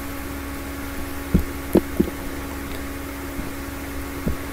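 Steady electrical hum and hiss picked up by the recording microphone, with a few short soft thumps about a second and a half and two seconds in, and one more near the end.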